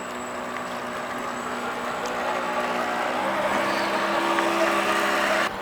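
An RC scale motor yacht's 550 brushed DC motor running with water wash, a steady whine that grows louder. Its pitch drops about three seconds in, and the sound cuts off abruptly near the end.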